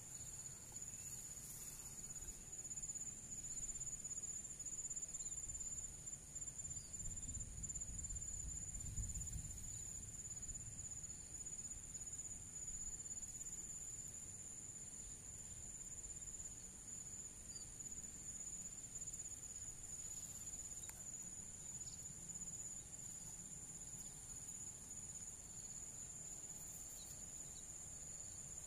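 Insects trilling steadily at a high pitch in the grass. A low rumble swells for a few seconds about a quarter of the way in.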